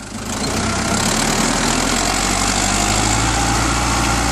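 New Holland 70-56 tractor's diesel engine running steadily under load while it pulls a plough through the soil, the sound swelling over the first second.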